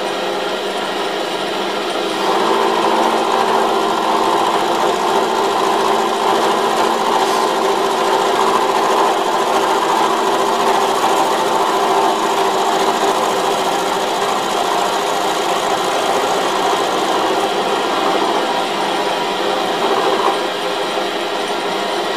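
Milling machine spindle running with an end mill cutting a 1 mm-deep flat on the end of a high-tensile steel bolt. A steady machining sound that gets louder about two seconds in and eases off slightly near the end.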